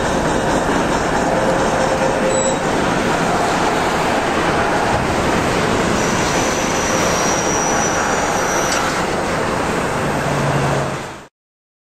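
Train passing a grade crossing, its wheels running loud and steady over the rails. The sound cuts off about eleven seconds in.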